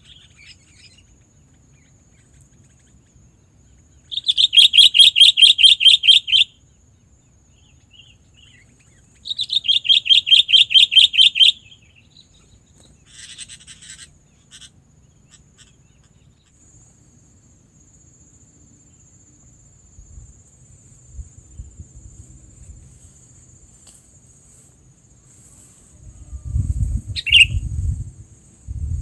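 Bird calls used to lure sooty-headed bulbuls. Two loud, rapid trills of repeated notes, each about two seconds long and about five seconds apart, are followed by a few softer chirps. Near the end a short chirp comes over some low rumbling.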